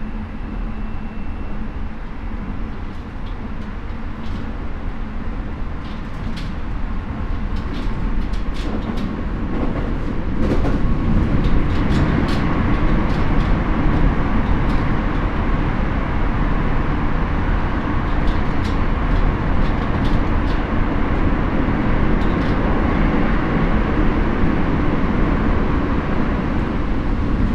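Keio 9000 series electric commuter train running between stations, heard from inside the car: a steady rumble of wheels on rail with scattered sharp clicks. The rumble grows louder about ten seconds in.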